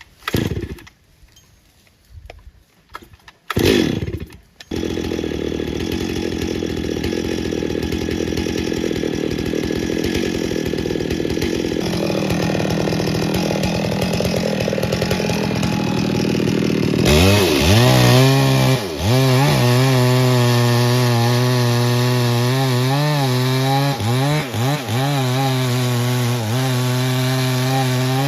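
Chainsaw: a couple of short bursts, then running steadily from about five seconds in. From about seventeen seconds it is throttled up to full speed, its pitch wavering up and down as it cuts into wood under load.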